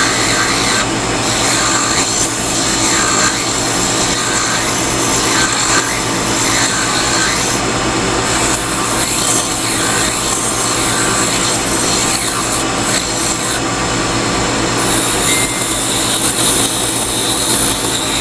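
Small half-round file rasping steadily against a wooden chess piece spinning on a wood lathe, over the steady hum of the lathe running.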